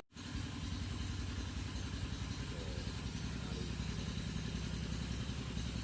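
Small motorcycle engine running steadily with a low, even putter, as on a ride.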